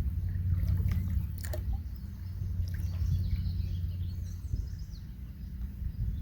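Low, unsteady rumble of wind buffeting the microphone, with birds chirping faintly and a couple of light clicks.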